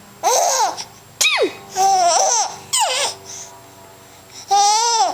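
Five-month-old baby laughing in a series of short, high-pitched squeals and giggles, about five bursts with quiet gaps between, one sliding sharply down in pitch about a second in.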